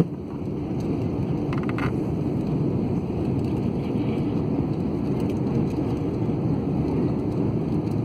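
Steady low cabin noise of an airliner in flight: engine and airflow heard from inside the passenger cabin.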